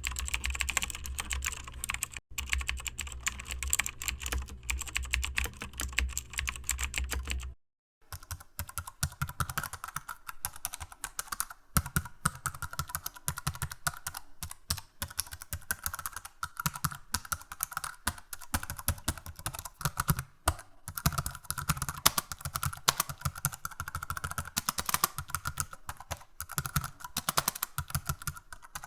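Fast typing on a computer keyboard: a dense, irregular run of key clicks. It breaks off briefly about a quarter of the way through, then the typing resumes with a deeper, thuddier sound.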